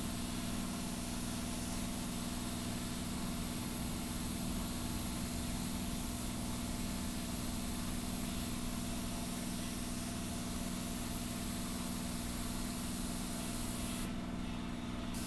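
Paint spray rig running: a steady machine hum from the air supply under the hiss of the spray gun. The hiss cuts out for about a second near the end while the hum carries on.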